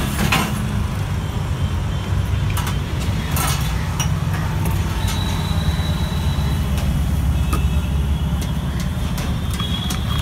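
Steady low mechanical hum, engine-like, with a few sharp clinks and knocks over it.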